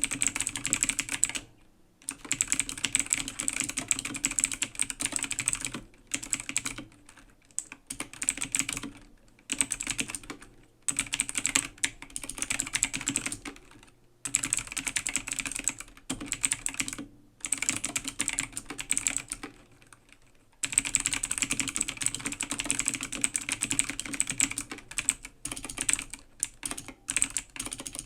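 Typing on an A2 AG0302 full-size mechanical keyboard with clicky blue switches: fast, dense key clicks in spells of a few seconds, broken by brief pauses of under a second, the longest near the start and in the middle.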